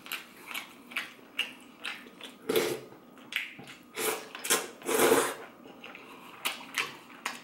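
Close-up eating sounds of beef noodle soup: irregular slurps and sips of broth with chewing in between, several short sounds a second, the loudest slurps about two and a half, four and five seconds in.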